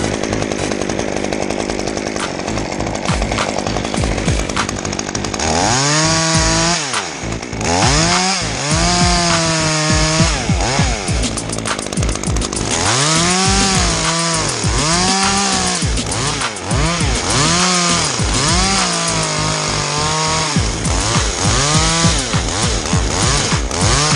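Two-stroke chainsaw running, then from about six seconds in its throttle revved up and down again and again, each rise and fall lasting about a second.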